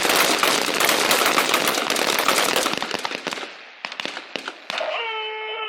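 A firing line of rifles shooting rapidly at once, shots overlapping into a dense crackle, thinning to a few last single shots about four seconds in: a timed string of fire on the 'contact' command.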